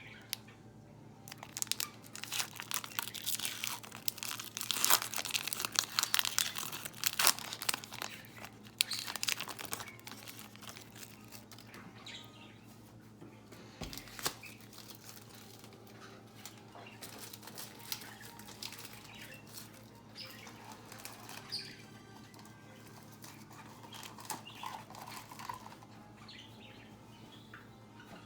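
Trading card pack wrapper being torn open and crinkled, dense crackling for the first ten seconds or so, then sparser rustling and crinkles as the wrapper and cards are handled.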